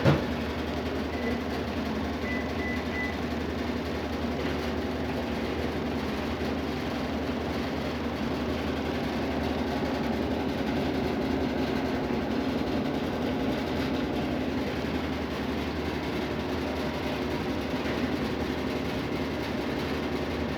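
Whirlpool Xpert System 20 kg top-load washing machine in its spin cycle: a steady whir of the drum spinning and the motor running, with a constant low hum.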